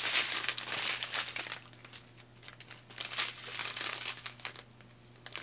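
Crinkling of a strip of thin clear plastic pouches holding diamond-painting resin drills as they are handled and flexed. It is densest in the first second and a half, then comes in shorter bursts.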